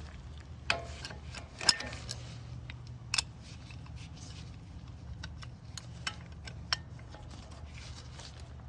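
Channel-lock pliers clicking and knocking against a brake caliper and old pad as the caliper piston is squeezed back, a few sharp metal clinks over a low steady hum.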